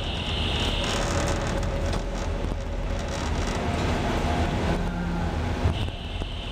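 Ship's engines and propellers running, a steady low rumble under a wash of noise. A higher hiss fades out about a second in and comes back near the end, and there is a single knock late on.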